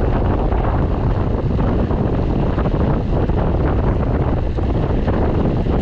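Heavy, steady wind buffeting the microphone.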